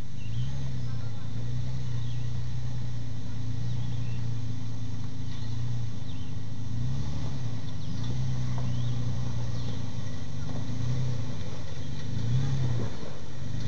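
Toyota FJ Cruiser's 4.0-litre V6 engine pulling at low revs as the truck crawls up a steep, rutted trail, the revs briefly rising and falling several times as the throttle is worked.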